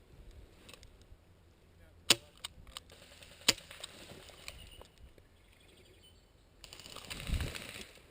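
Airsoft gun firing two sharp single shots about a second and a half apart, with a few fainter ticks between them. A rush of noise with a low rumble rises near the end.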